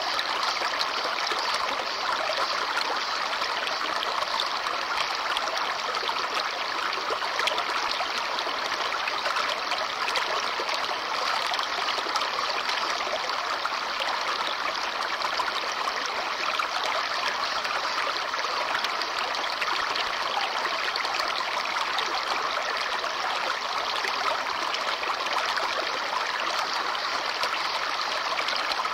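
Babbling brook: a shallow stream running over rocks, a steady rushing and trickling that doesn't change.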